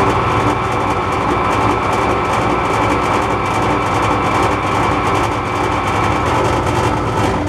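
MAS metal lathe running under power: a steady motor and gear-train drone with a constant whine. It begins to wind down near the end.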